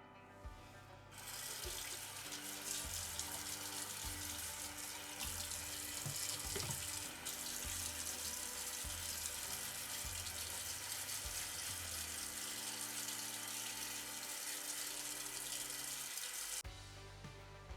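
Tap water running steadily, as when vacuum parts are rinsed under a faucet. It starts about a second in and cuts off shortly before the end.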